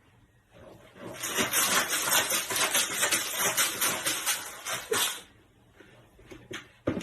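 A dog making a run of quick, noisy, hissy pulses, about three or four a second, starting about a second in and stopping after about four seconds.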